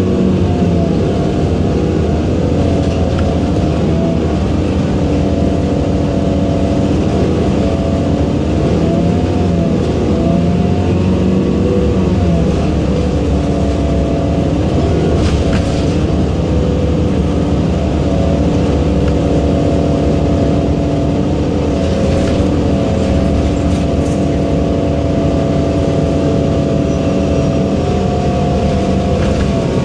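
Inside an Orion VII NG hybrid bus under way: its Cummins ISB diesel and BAE HybriDrive hybrid drivetrain running steadily, several droning tones that waver slightly in pitch over constant road rumble.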